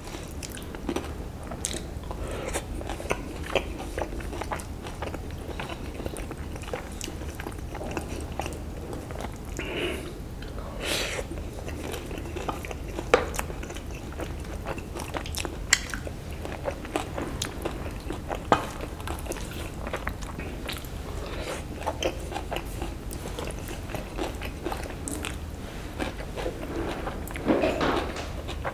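Close-miked chewing of instant fried noodles and fried tofu: soft, wet mouth clicks at irregular intervals over a low steady hum.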